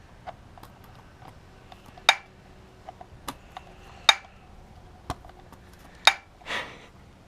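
Metal hand tools and engine parts clinking and tapping during an engine teardown: a string of sharp metallic clinks, about five loud ones roughly a second apart with lighter ticks between, and a brief scrape near the end.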